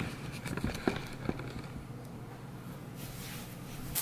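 Light handling of a white cardboard box: a few soft taps and scrapes in the first second or so, then a faint rustle near the end.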